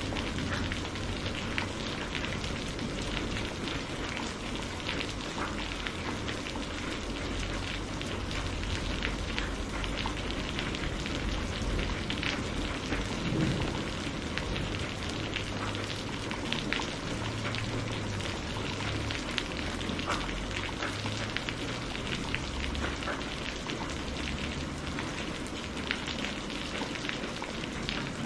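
Steady rain with many small scattered crackles and pops from a wood fire, over a low uneven rumble of distant thunder.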